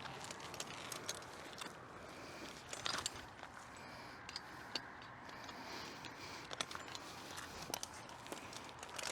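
Faint scattered clicks and clinks of metal climbing hardware and rope being handled, with one louder click about three seconds in, as a climber disconnects from his rope system and sets his lanyard.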